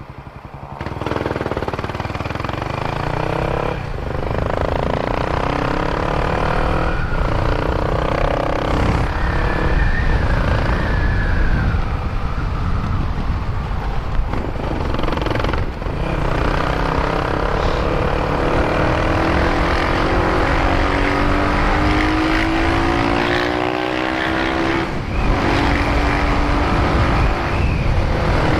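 Honda Twister 250's single-cylinder engine running loud through a Doré aftermarket exhaust while the bike is ridden. The engine note climbs steadily through each gear and dips briefly at each of three gear changes. The silencer's glass-wool packing is freshly replaced.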